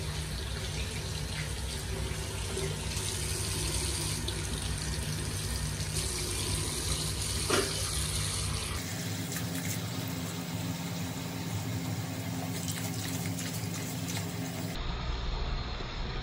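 Water running steadily from a bathroom sink tap into the basin.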